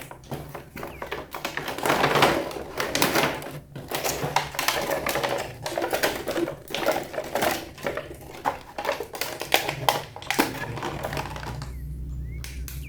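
Plastic toy packaging and toy parts being handled and unboxed: a dense, irregular run of clicks, crinkles and rustles that dies down about a second before the end.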